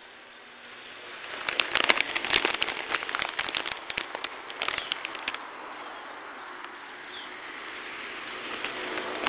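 A string of Black Cat firecrackers going off: a rapid, irregular crackle of small pops for about four seconds, then only a steady hiss.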